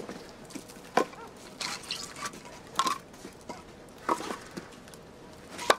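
Firewood being handled: four sharp wooden knocks, about one and a half seconds apart, with quieter scuffing between.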